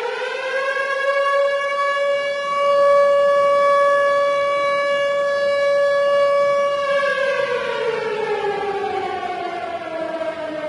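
Civil defense siren wailing: its pitch climbs over the first second or so, holds steady for several seconds, then slowly falls in the last few seconds.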